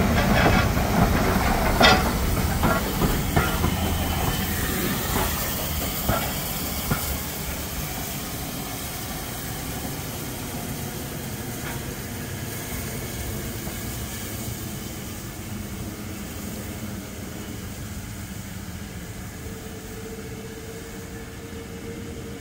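Steam locomotive running past and drawing away, with sharp clicks and knocks from wheels and rails over a low rumble and steam hiss that fade steadily as it recedes. A faint steady tone sounds near the end.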